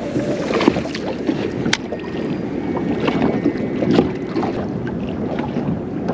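Wind buffeting the microphone and water slapping against a small boat's hull, with scattered light knocks and clicks.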